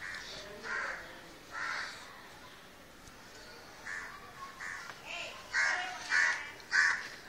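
Crows cawing: a series of short caws with gaps between, the last three loudest and coming in quick succession near the end.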